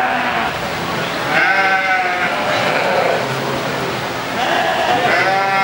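Black-faced lambs bleating: about three long, wavering bleats, one after another.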